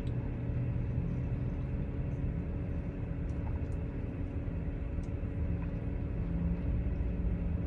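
Steady low rumble of a running vehicle, with a faint steady hum and a few faint ticks.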